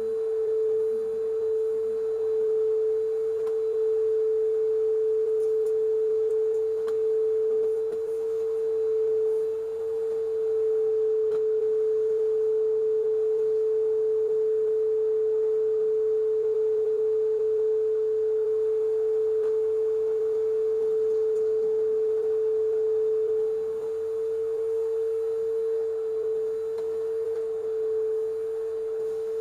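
Vacuum cleaner motor running with a steady, single-pitched hum. Right at the end, a rush of air cuts in and the pitch dips slightly.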